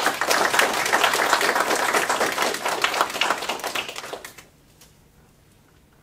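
Audience applauding, the clapping dying away about four and a half seconds in.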